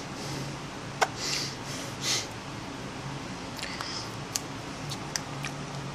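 A metal pry blade scraping and clicking along the seam of an LG Nexus 5's plastic back cover as it is worked open: a sharp click about a second in, two short scrapes soon after, then several small clicks. A faint steady low hum runs underneath.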